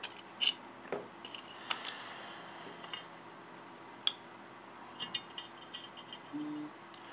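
Small metal parts of an airsoft gearbox (gears, bushings and shims) being taken out and set down: scattered light clicks and taps, with a quick run of them about five seconds in.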